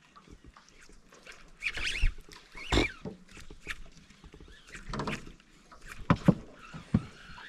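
Irregular splashes and pops at the water surface, several sharp ones spread over a few seconds: fish feeding and baitfish jumping.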